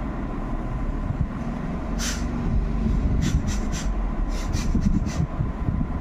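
A woman sniffing in short, breathy sniffs through her nose as she tickles it to bring on a sneeze: once about two seconds in, then a quick run of about seven sniffs. Under them runs a steady low rumble, the loudest sound throughout.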